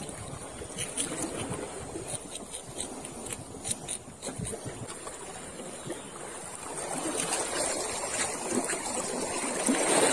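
Seawater lapping and trickling against a rock ledge, with scattered small clicks and rustles close by. The water noise grows louder over the last few seconds.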